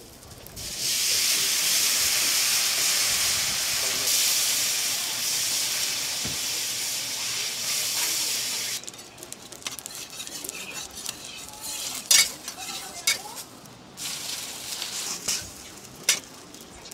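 Noodles sizzling loudly on a hot steel flat-top griddle as a metal spatula presses them flat, with steam hissing. The sizzle starts about a second in, drops off sharply after about eight seconds, and is followed by quieter sizzling and a few sharp clicks of the spatula on the griddle.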